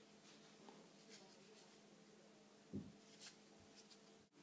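Near silence: faint room tone with a steady low hum, a few faint ticks and one soft low thump about three seconds in.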